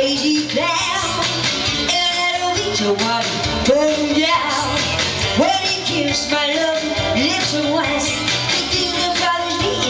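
A woman singing a rock-and-roll song into a microphone over an upbeat backing track.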